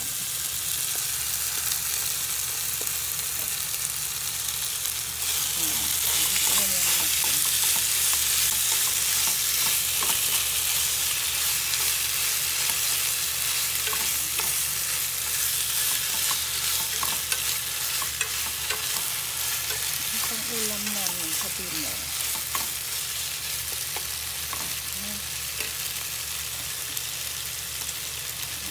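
Raw chicken pieces sizzling in hot oil with garlic and ginger in a nonstick pan, stirred with chopsticks that tap lightly against the pan now and then. The sizzle swells about five seconds in and then slowly eases off.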